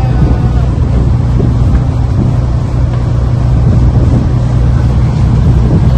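A tour boat's engine running steadily while underway, a loud, constant low drone.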